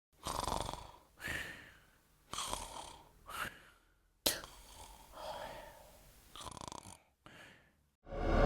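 A person making a series of short, rasping breaths, about one a second, as a breathing and wheezing sound effect.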